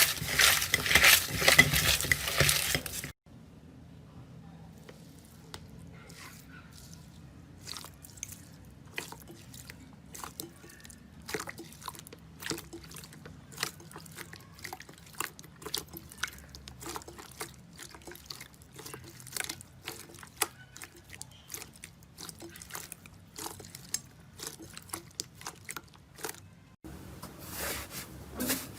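Slime being pressed and worked by hand, making many small sticky wet clicks and pops in an irregular stream. The first few seconds are louder and denser, a crackling crunch, before it cuts to a quieter stretch of softer clicking.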